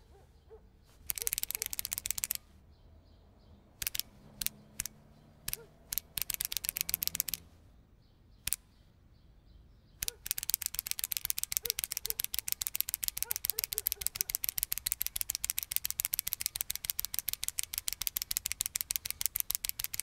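Retractable ballpoint pen clicked over and over with the thumb: two short quick runs and a few single clicks, then nonstop rapid clicking, several clicks a second, from about halfway through.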